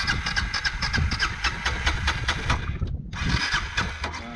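Electric starter cranking a dual-sport motorcycle engine in two tries: about three seconds of cranking, a brief stop, then about a second more.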